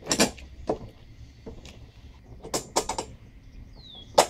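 Knocks and clicks of a lawn mower's handle parts being handled and fitted together. There is a longer clattering knock at the start, a few quick knocks in the middle and a sharp knock near the end.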